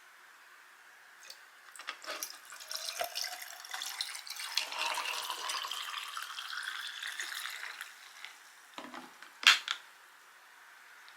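Liquid pouring into a cup or glass, its pitch rising steadily as the vessel fills. It is followed near the end by a sharp clack, the loudest sound, like the container or bottle being set down.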